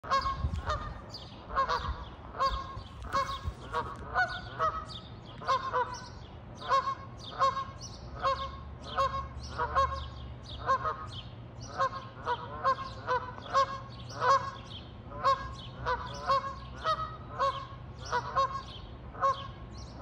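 Canada goose honking over and over in a steady run of short calls, nearly two a second.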